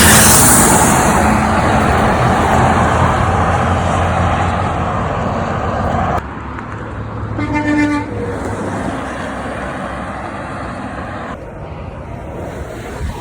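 A heavy truck passing close with loud engine and road noise, which drops off abruptly about six seconds in. About seven and a half seconds in comes a single short horn toot, under a second long, over quieter traffic.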